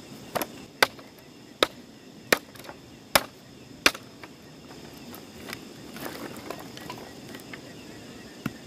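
Machete chopping firewood: six sharp chops in the first four seconds, roughly one every 0.7 s, then quieter rustling as the split wood is handled, and one last lighter chop near the end.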